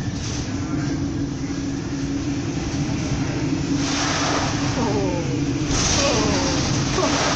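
A ship's steady engine hum and rushing wind on deck as a ferry pitches through a storm. About 4 seconds in and again near 6 seconds, waves crash over the bow and spray surges against the ship with a loud rush. A few short falling tones are heard during the second surge.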